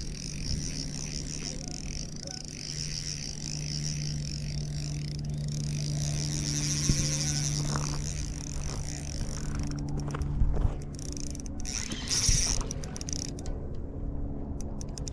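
Spinning reel being cranked: its gears give a steady whir as the jig is retrieved, stopping about three quarters of the way through, followed by a few light handling knocks.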